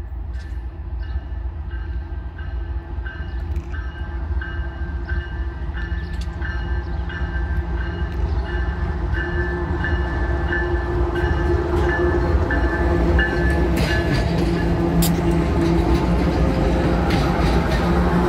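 Ferromex GE ES44AC diesel-electric locomotives hauling an intermodal train approach and pass: a low diesel engine drone grows steadily louder, with wheels clicking over the rails near the end. A bell rings steadily, about three strokes every two seconds, until it stops about 13 seconds in.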